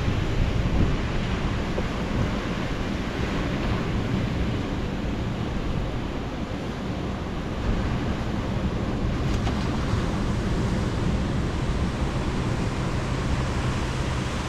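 Ocean surf washing ashore mixed with wind buffeting the microphone: a steady rushing noise with a deep rumble underneath.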